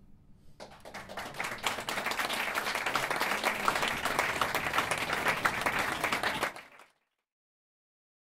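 Audience applauding with many hands clapping, starting about half a second in and cutting off abruptly near the end.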